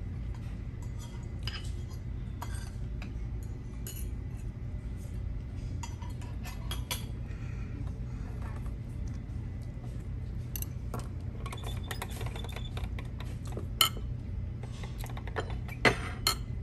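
Cutlery and dishes clinking during a meal, with scattered sharp clicks over a steady low hum and a few louder clinks near the end.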